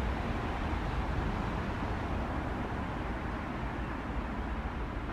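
Steady rumble and hiss of distant road traffic, with no separate events standing out.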